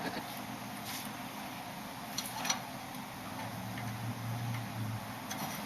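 A few light clicks and taps over a steady low hum, with the hum swelling briefly a little past the middle.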